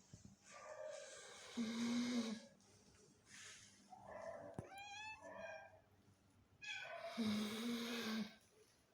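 A sleeping pet snoring: two long, rasping snores about six seconds apart, each with a steady low hum. Between them comes a short wavering whine.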